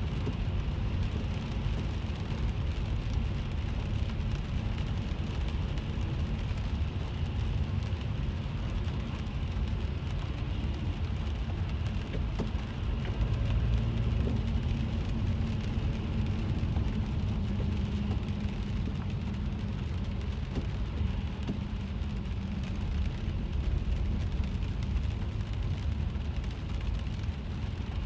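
Inside a moving car's cabin: the steady low rumble of engine and tyres on a wet road, with rain hitting the roof and windshield as faint scattered ticks.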